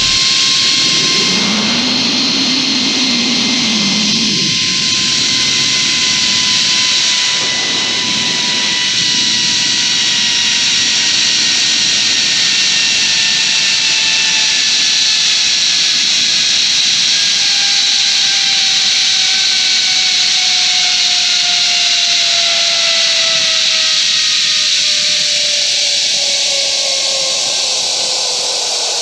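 Zip-line trolley pulleys whining along the steel cable, over a steady rush of wind; the whine slowly falls in pitch over the ride.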